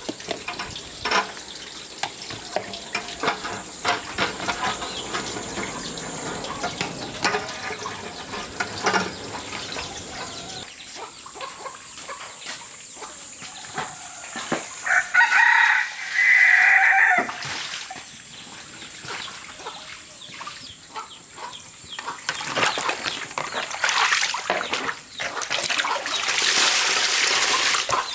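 A rooster crows once, about halfway through, over a steady high hiss and scattered clicks, with a louder rushing noise near the end.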